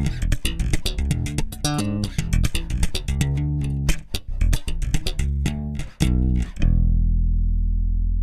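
Five-string electric bass (swamp ash body, maple neck) heard through a Bartolini MV5CBC passive dual-coil pickup, played as a fast run of plucked notes with sharp attacks. About six and a half seconds in, it settles on a low note that rings on and slowly fades.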